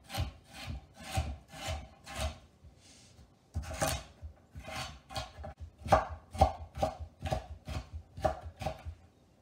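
Chef's knife chopping carrot on a wooden cutting board, dicing it finely: a steady run of sharp knife strikes about two a second, with a short pause about three seconds in, stopping just before the end.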